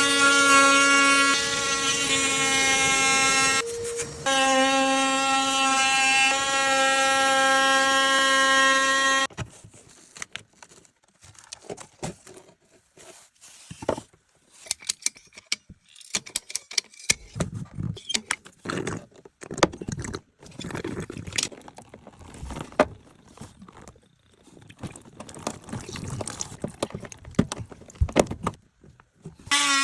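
A loud, steady, horn-like chord with many overtones holds for about nine seconds, with a short break near four seconds in, then stops. After it come quiet, scattered clicks, knocks and rubbing of hands working on plastic pipe and push-fit fittings.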